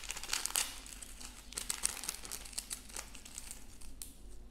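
A small plastic sachet being crinkled and torn open by hand: a run of crisp crackles that thins out near the end.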